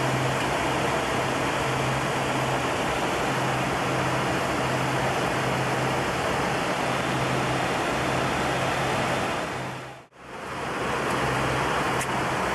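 Steady flight-deck noise of a Boeing 727 in flight: an even rush of airflow with a constant low hum underneath. It cuts out for a moment about ten seconds in and comes straight back.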